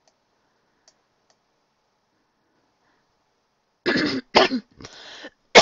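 A person coughing and clearing their throat, a quick run of four harsh bursts starting about four seconds in, the last one the loudest.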